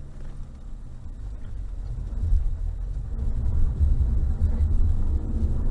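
Deep rumble of a Mercedes 4x4's engine and drivetrain under load, heard from inside the cabin, growing louder from about two seconds in as the car pulls up a steep slope.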